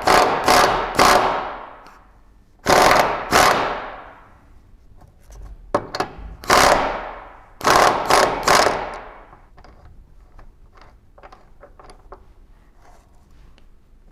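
Impact wrench running in short rattling bursts to loosen a subframe bolt: about eight bursts in three groups over the first nine seconds, followed by light scattered clicks.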